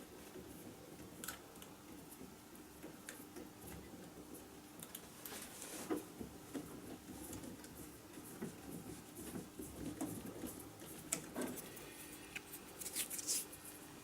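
Faint clicks and short scrapes of small metal parts being handled at a workbench, with a louder scrape about six seconds in and a cluster of clicks near the end, over a low steady hum.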